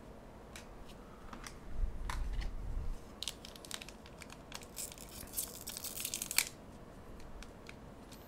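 Foil trading-card booster pack being torn open and crinkled, with light clicks of cards and wrapper being handled. A dull bump comes about two seconds in, and the loud tearing comes near the middle, lasting over a second.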